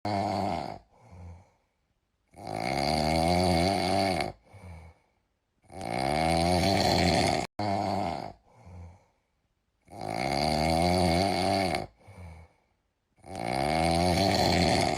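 Snoring, four long snores about four seconds apart, each followed by a shorter, softer one, with silence between.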